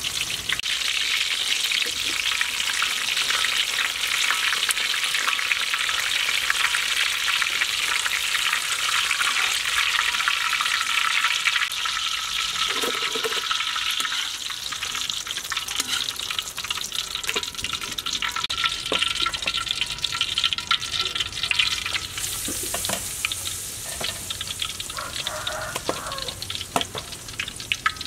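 Battered pineapple slices deep-frying in hot oil in a wok: a dense, steady crackle and sizzle. The sizzle eases after the middle, then flares up brighter near the end as fresh battered pieces go into the oil.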